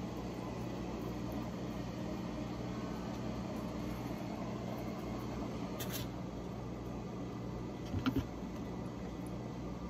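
Steady hum of a countertop air fryer's fan running, with two or three quick soft knocks about eight seconds in.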